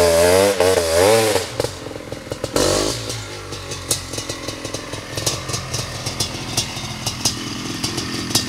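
Honda CR500's big single-cylinder two-stroke engine revving up and down in quick throttle blips, then dropping back about a second and a half in to a low, uneven idle with irregular sharp clicks.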